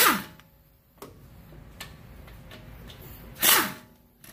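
Air-powered hand tool at a front brake caliper, run in two short bursts about three and a half seconds apart, each with a whine that falls in pitch as the tool spins down.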